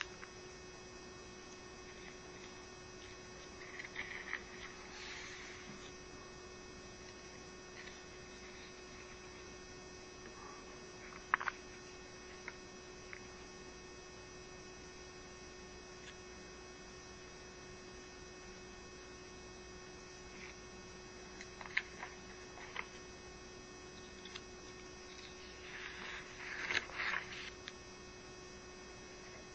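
Steady electrical hum with a low tone and fainter higher whines above it, broken by a few faint clicks and rustles, the loudest about eleven seconds in and a short cluster near the end.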